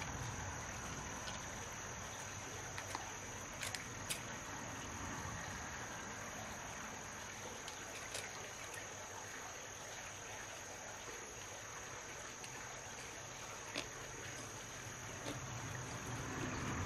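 Insects droning in one steady high tone, with a few sharp clicks of a knife blade against a freshwater mussel's shell: two about four seconds in, one near eight seconds and one near fourteen.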